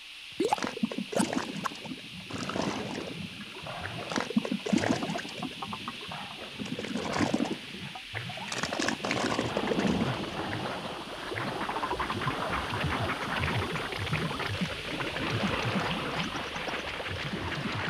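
Thick liquid bubbling and gurgling as it gushes out of an overflowing baking soda and vinegar volcano. It starts as irregular pops and glugs and thickens into a steadier gush about halfway through.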